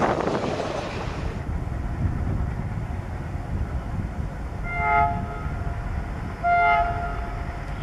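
Indian Railways diesel locomotive sounding its air horn twice as it approaches, a short blast and then a slightly longer, louder one, over a steady low engine rumble. The first second or so carries the rolling noise of passing coaches.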